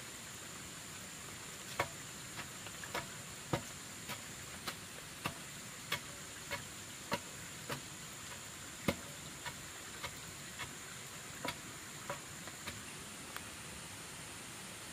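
A series of about twenty sharp knocks, roughly one every half-second, starting about two seconds in and stopping near the end, over a steady high hiss.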